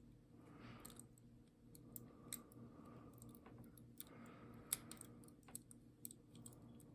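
Faint small metallic clicks and ticks from a pick wire and tensioner working inside a five-lever padlock as its levers are nudged up and set, over near silence.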